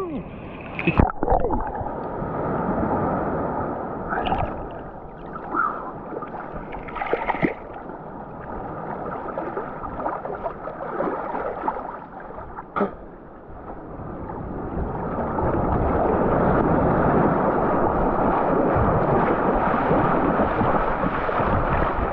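Sea water sloshing and gurgling around a swimmer moving in the sea, with a few sharp splashes, building into a louder steady rush of water about two-thirds in.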